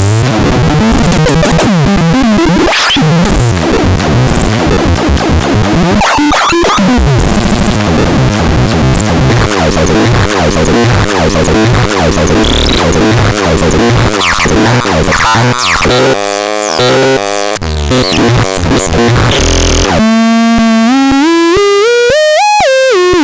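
Electronic synthesizer playing harsh, noisy, chaotic textures. Near the end a single buzzy tone takes over and glides up in pitch, then falls back down.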